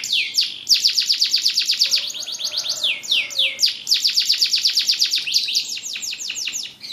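Canary singing: long, rapid trills of repeated falling high notes, about ten a second, with a softer warbling passage about two seconds in.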